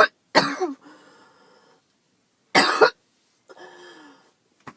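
A girl coughing: two coughs in quick succession at the start and another about two and a half seconds in.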